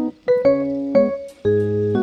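Background music: a soft keyboard tune of short piano-like notes over changing bass notes.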